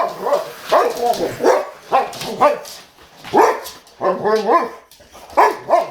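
Boxer dog barking and whining in short, pitch-bending calls, over and over.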